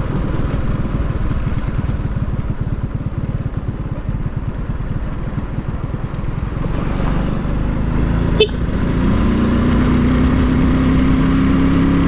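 Motorcycle engine running under way, with wind and road rumble on the helmet microphone. About eight seconds in there is a short sharp click. After it, the engine note climbs slowly as the bike speeds up.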